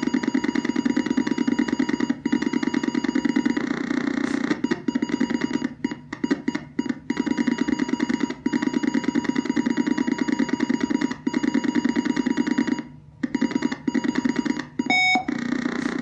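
Fast mechanical chattering in runs of one to three seconds with short pauses between them, and a brief electronic beep near the end.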